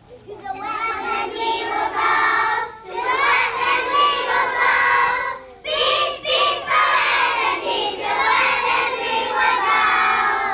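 A group of young children singing together in phrases, with two short breaks.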